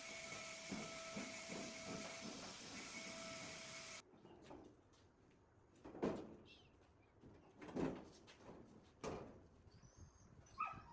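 A steady hum with a faint pulsing beat cuts off abruptly about four seconds in. A dog then barks three times, a second or two apart, and gives a short whine near the end.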